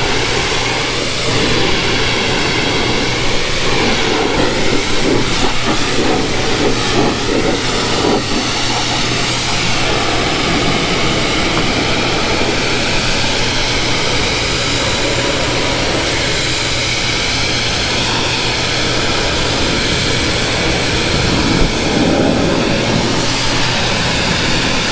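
Pressure washer running steadily: the water jet hisses against the truck's wheel well and tyre over a constant low hum from the washer's pump and motor, blasting the mud off.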